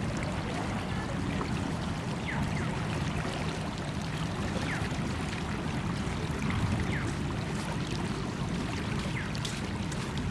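Steady rushing of river water, with short, faint high chirps every second or two.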